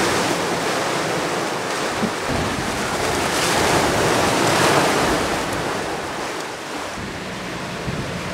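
Rushing, breaking white water of a fast-sailing catamaran's wake and the surrounding sea, with wind across the microphone. The noise swells a little louder in the middle and eases toward the end.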